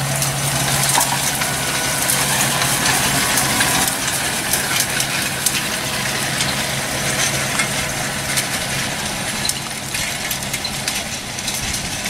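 New Holland T7 tractor running at working speed while pulling a rotary rake through cut grass, with scattered light clicks over its steady drone. Its low engine tone fades about three seconds in.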